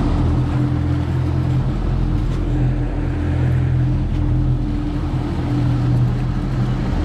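Twin outboard motors running steadily under the boat, with a constant low engine drone and the rush of water from the wake.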